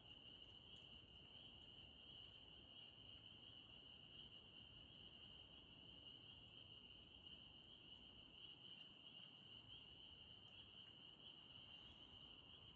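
Faint frog chorus: a steady, high-pitched trilling that runs on without a break.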